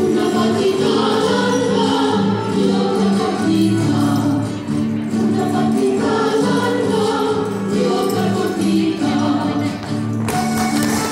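Chilean folk dance music with a group of voices singing together. Near the end the music turns brighter and busier.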